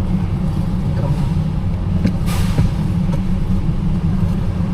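Car engine idling, a steady low rumble heard from inside the cabin, with a brief rushing noise a little over two seconds in.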